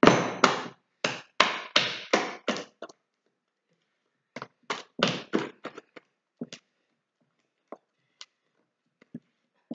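Soft, potato-enriched focaccia dough being slapped hard by hand, a quick run of wet smacks about three a second. After a short pause about three seconds in the slapping starts again, then thins out to a few faint knocks near the end. This slapping is the kneading stage that works air into the dough.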